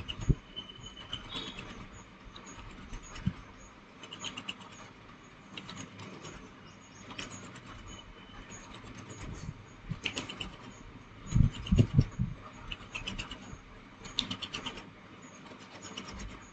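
Hands rolling a soft clay paste between the palms into a thin coil: soft rubbing with occasional light knocks, and a cluster of louder low thumps about eleven to twelve seconds in. Faint high ticking comes and goes.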